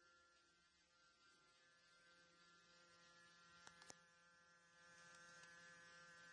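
Faint steady hum of the small motor unit that drives the vertical blinds' bead chain, turning the slats closed. Two light clicks come a little past halfway, and the hum grows a little louder near the end.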